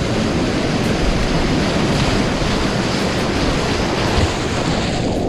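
Whitewater rapids rushing: a steady, loud noise of fast river water that cuts off suddenly near the end.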